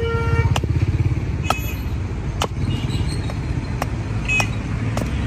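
Hatchet (tesha) chopping into a wooden blank held on a stump, sharp blows about once a second, roughing out a ladle. Steady street traffic runs underneath, and a car horn stops about half a second in.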